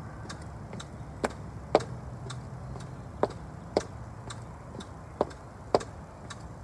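High-heeled boots stepping up and down on a brick step, sharp heel clicks about two a second in an up-up-down-down rhythm: two louder clicks on the brick, then two softer ones on the mat below.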